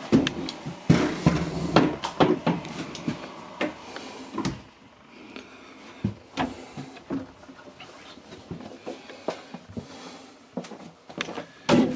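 Footsteps and wooden knocks in a wood-panelled boat interior: a dense run of clunks in the first three seconds, then single knocks every second or two, with a louder one near the end.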